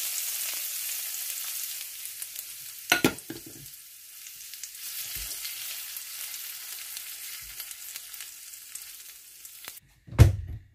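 Hot tempering oil, with mustard and cumin seeds, dals, garlic, curry leaves and a dry red chili, sizzling on contact with mint chutney in a bowl and being stirred in with a spoon; the hiss slowly dies away as it cools. A sharp knock about three seconds in, and a low thump just before the end.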